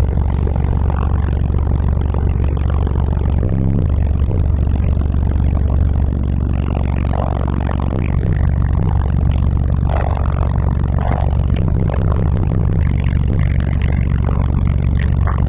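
Car audio subwoofers playing bass-heavy music at high volume, the deep sustained bass far louder than everything else, with a couple of brief drops in the bass about four and eight seconds in.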